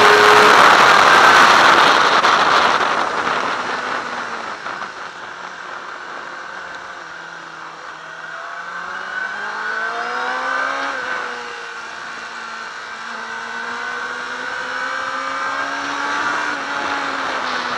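Yamaha R6 sport bike's inline-four engine and wind rush, heard onboard at track speed. The sound is loud at first, then falls away over several seconds as the bike slows into a corner. About eight seconds in the engine revs up with rising pitch, drops back around eleven seconds in, then climbs slowly again.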